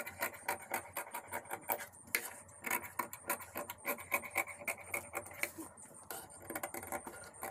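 Tailoring scissors snipping through saree fabric, many short cuts in quick, uneven succession, trimming away the excess cloth around the lined blouse panel.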